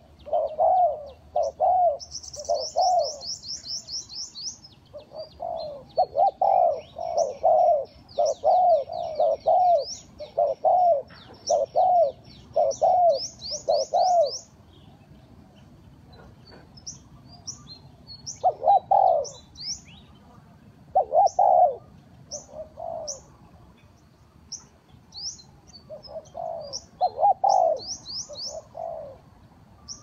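Spotted doves cooing: bouts of short, low, evenly repeated notes, with longer pauses between bouts in the second half. Small birds chirp high above, with a fast trill a couple of seconds in.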